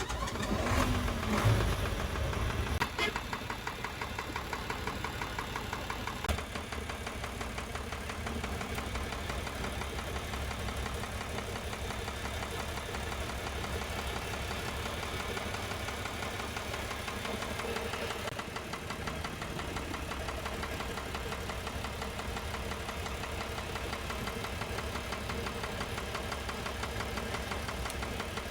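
Isuzu 6HH1 six-cylinder diesel engine idling with a knock, a little louder in the first couple of seconds after starting and then steady. The mechanic traces the knock to cylinder number one, and to a lesser degree number two, by loosening the injector pipes.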